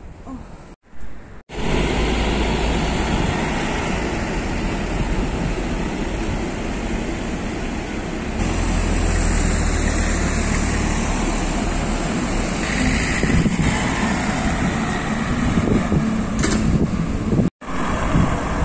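Road traffic noise: a steady rumble of passing cars and trucks on a busy street, with short breaks near the start and near the end.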